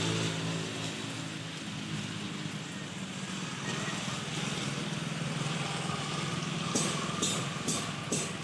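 A steady machine hum under a noisy hiss, with a few sharp clicks near the end.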